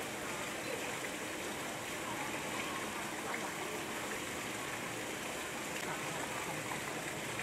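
Small waterfall trickling down a rock face into a shallow pool: a steady sound of falling, splashing water.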